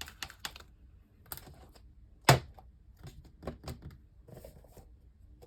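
Slime being handled, giving a run of small clicks and taps, with one sharp knock a little over two seconds in, like a container or lid set down on the table.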